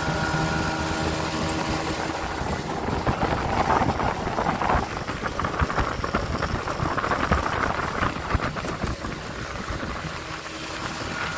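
Small tiller outboard motor running steadily at speed on an aluminium boat. For most of the middle its hum gives way to rushing water, spray and knocks of the hull on the chop, with wind on the microphone; the engine hum returns near the end.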